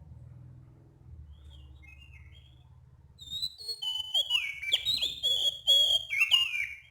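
Oriental magpie-robin (kacer) singing: a few faint warbled notes, then about three seconds in a loud, varied run of clear whistles and sweeping notes.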